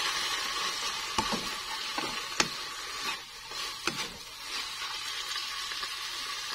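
Water spinach stir-frying in a wok: a steady sizzle as a spatula stirs and tosses the greens, with a few sharp knocks of the spatula against the pan.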